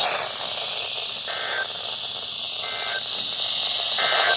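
Weather radio receiver hissing with steady static, broken by three short, evenly spaced bursts of digital data tones. This pattern is typical of the SAME end-of-message code that closes a NOAA Weather Radio warning broadcast.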